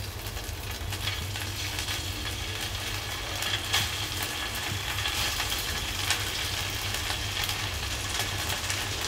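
Marinated meatballs on skewers sizzling steadily on a hot, margarine-greased non-stick grill pan over a low flame, with scattered small crackles.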